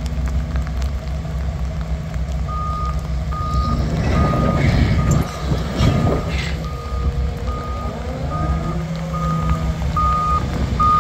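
Doosan DX225LC-7 excavator's diesel engine running steadily as the machine travels, with its travel alarm starting about two and a half seconds in: a steady high beep, about five beeps every four seconds. A louder stretch of rattling and squeaking from the moving machine comes in the middle.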